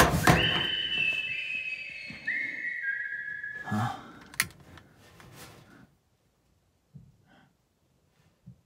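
A high whistle sounding a series of held notes that step down in pitch over about three and a half seconds, with sharp knocks at the start and a single knock shortly after. Then it goes almost silent, with a few faint ticks.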